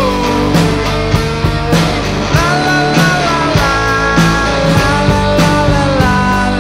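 Live rock band playing an instrumental passage on electric guitar, bass and drums: a lead melody bends in pitch over a steady drum beat.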